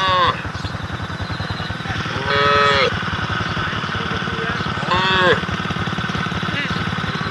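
Cattle mooing: three calls, the second the longest, each rising and then falling in pitch, over the steady low running of an engine.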